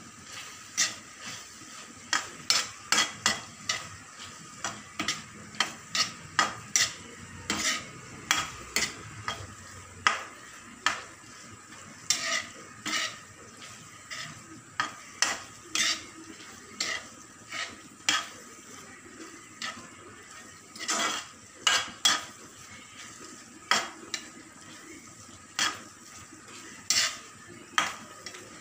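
Metal spatula scraping and clinking against a frying pan as chopped capsicum is stirred, in irregular strokes over a faint steady sizzle of frying.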